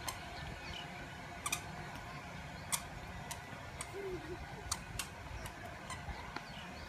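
Scattered sharp clicks at irregular intervals, about a dozen, over a steady low rumble, with a brief child's vocal sound about four seconds in.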